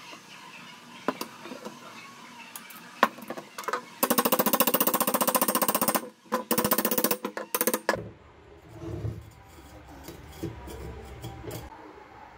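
A handheld power tool, most likely a cordless impact driver, runs in two bursts of about two seconds each with a rapid hammering rattle, driving a fastener into the metal bearing frame. Before it come a few sharp clicks of metal parts being handled.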